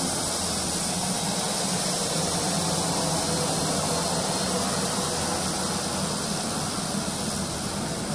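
Embraer A-29 Super Tucano's PT6A turboprop engine running with the propeller turning as the aircraft taxis, a steady, loud turbine hiss.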